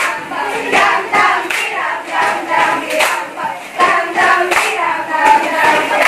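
A group of students clapping in a steady rhythm, about one clap every three-quarters of a second, with voices singing together over it.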